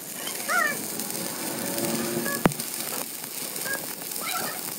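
Electric arc welding on a truck axle shaft: the arc's steady crackling sizzle, with one sharp click about halfway through.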